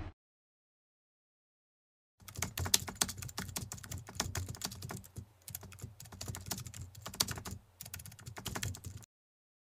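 Rapid, irregular tapping and clicking like typing, lasting about seven seconds, with a low hum underneath; it starts about two seconds in and cuts off suddenly near the end, with dead silence before and after.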